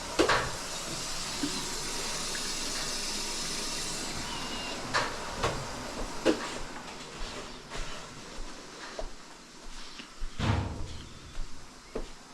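Water hissing out of an opened tap as the house plumbing loses pressure with the well pump switched off; the hiss fades away about seven seconds in. Several hard knocks and clunks fall through it.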